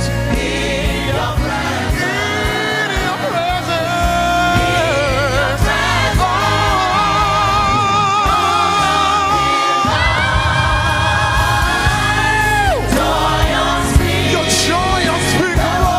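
Gospel worship music: a choir of voices singing over band accompaniment, with long held notes that waver with vibrato, the longest about halfway through and another starting around two-thirds in.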